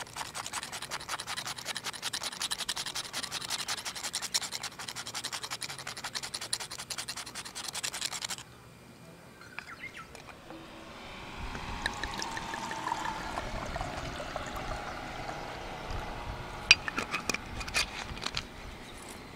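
Rock salt being grated over sliced grilled steak: a fast, steady rasping scrape for about eight seconds that stops abruptly. A few light clicks follow near the end.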